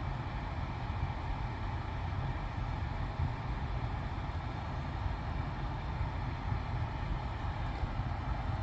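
Steady low rumble of a car's engine and road noise, heard from inside the vehicle, with no music or audio from the sound system.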